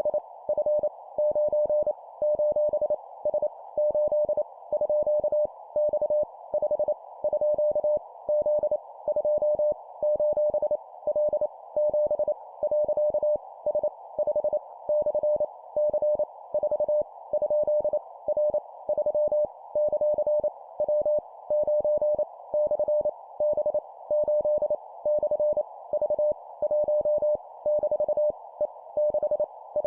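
Morse code sent at 25 words per minute: a single steady mid-pitched tone keyed on and off in quick dots and dashes, spelling random letters, numbers and punctuation, over a steady hiss.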